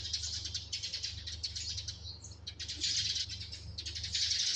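Eurasian tree sparrows chirping, many quick overlapping chirps with a brief lull about two seconds in, over a steady low hum.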